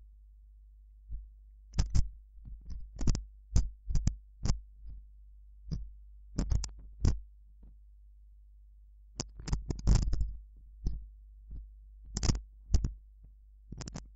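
Keystrokes on a computer keyboard, short sharp clicks coming singly and in quick little runs with pauses between, as numbers and brackets are typed.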